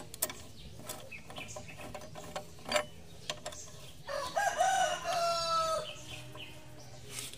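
A rooster crows once for about two seconds, midway through, over scattered metal clicks and clinks of a T-handle socket wrench tightening motorcycle brake caliper bolts.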